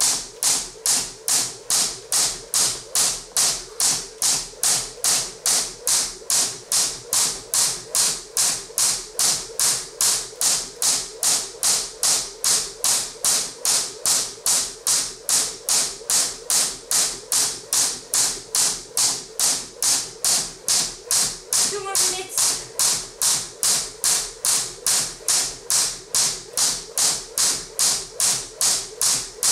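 Crossrope jump rope's coated cable slapping the floor with each turn in a steady skipping rhythm, about two and a half sharp slaps a second, without a break.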